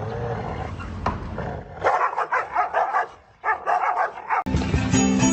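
A dog barking in two quick runs of short barks with a brief pause between them; music with guitar cuts in suddenly near the end.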